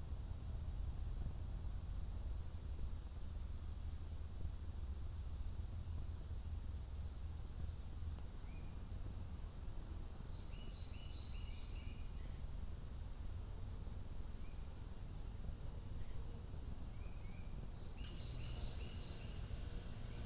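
Crickets trilling steadily on one high note, with short bird chirps in clusters about halfway through and near the end, over a low outdoor rumble.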